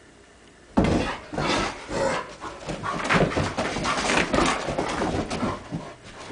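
Two Great Pyrenees playing rough, with dog vocalisations and barks over scuffling and bumping, starting suddenly about a second in and going on in irregular bursts.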